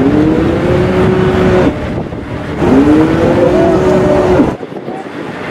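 A horn made to sound like a cow's moo blows twice loudly from the cow-decorated boat. Each moo slides up in pitch, holds for over a second, then drops away; the second begins about two and a half seconds in.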